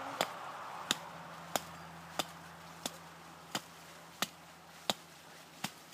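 Hatchet chopping into the base of a small spruce's trunk: about nine sharp, evenly paced blows, roughly one and a half a second.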